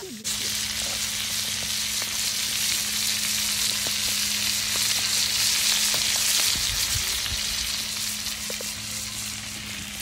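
Flour-coated sardines frying in hot oil over a wood fire: a dense, steady sizzle that starts abruptly just after the beginning and swells slightly midway.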